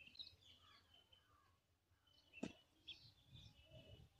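Near silence with faint short bird chirps and a single sharp click about halfway through.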